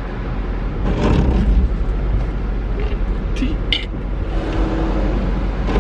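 Steady road and engine rumble inside a moving car's cabin, with two or three short, high squeaks or clicks about three and a half seconds in.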